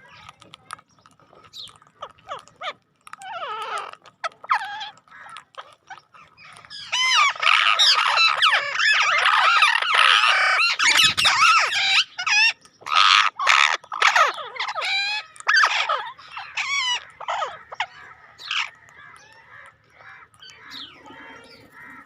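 Bird-like chirping and squawking calls, scattered at first, then a dense flurry of them in the middle before they thin out again, with a brief low thump about eleven seconds in.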